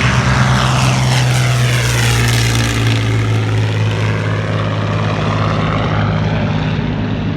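Propeller aircraft engine at takeoff power going past, a loud steady drone. Its higher overtones sweep down and back up as it passes, and it eases off slightly near the end as the plane moves away.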